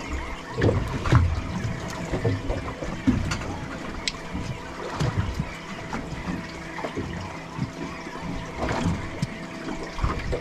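Water slapping against a small boat's hull, with irregular knocks and scattered clicks and a faint steady hum underneath.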